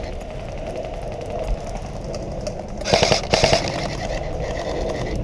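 Airsoft gun firing a short, rapid burst of shots about three seconds in, over steady outdoor background noise.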